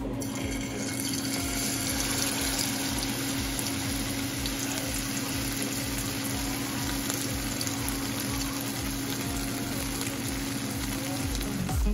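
Marinated kingfish (seer fish) steak frying in hot oil in a pan: a steady sizzle.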